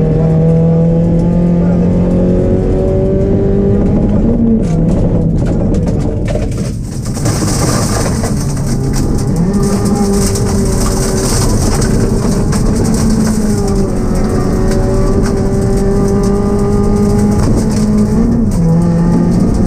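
Ford Focus rally car's engine heard from inside the cabin, driven hard on a gravel stage: the engine note holds mostly steady, with short rises and drops as gears change and a brief lift about seven seconds in. A run of sharp knocks from the car hitting stones and bumps comes just before the lift, and a high hiss of tyres on loose gravel runs through the second half.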